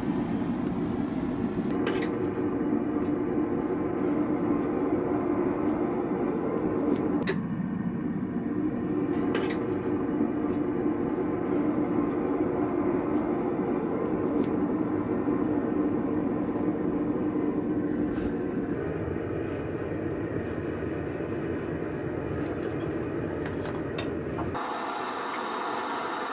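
Gas burner of a small crucible furnace running steadily, heating scrap brass to melting, with a few sharp clicks. The sound gets somewhat quieter about two-thirds of the way through and changes near the end.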